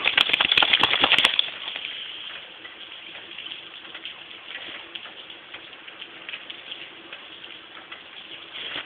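Snow crunching and crackling underfoot, a dense run of crackles loudest in the first second and a half, then a softer crackle.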